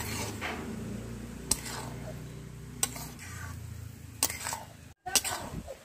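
Metal spatula knocking and scraping against a pan as chopped greens are stirred and fried, with sharp knocks spaced more than a second apart over a low steady hum.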